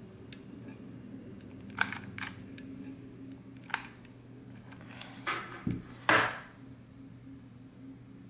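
Clicks and knocks of a hot glue gun being worked to squeeze out a small blob of sealing wax and then handled, the loudest knock about six seconds in. A faint steady hum runs underneath.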